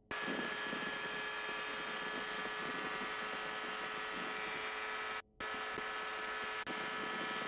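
FlightStar ultralight's engine at takeoff power: a steady drone with several steady tones. It starts abruptly and cuts out briefly about five seconds in.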